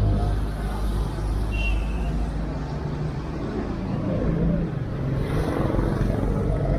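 A motor vehicle's engine running with a steady low hum amid street noise.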